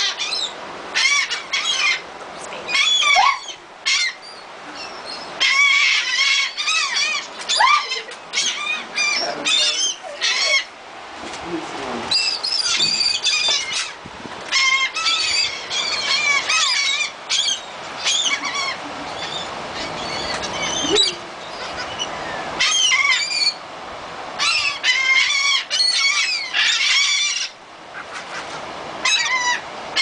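A flock of gulls calling over one another: many short, overlapping calls, almost without a break, with a few brief lulls.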